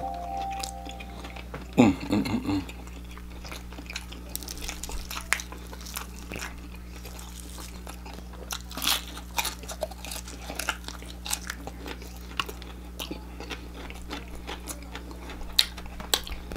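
Close-up crunching and chewing of an extra-crispy battered fried chicken leg: many short, sharp crackles of the crust, with a brief vocal sound about two seconds in.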